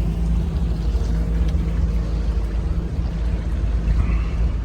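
Regal 2665 express cruiser's engine running steadily under way, a continuous low drone mixed with the rush of wind and water.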